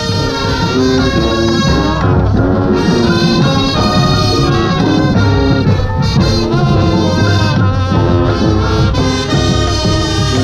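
Marching band playing its show, brass-led with sousaphones and horns over percussion, sustained chords changing throughout.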